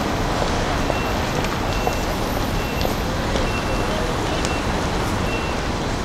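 Steady traffic noise from a busy city intersection, with cars passing. A few short, faint high beeps sound now and then.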